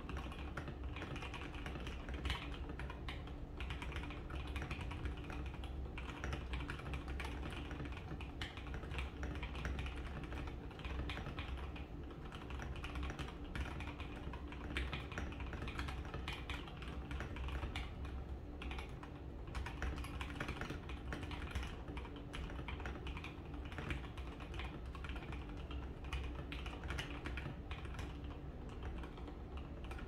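Continuous fast typing on an NK65 mechanical keyboard with lubed and filmed Gateron Black Ink linear switches, PBT keycaps, a burger mount mod and foam inside. It gives a dense, unbroken stream of deep, thocky key strikes.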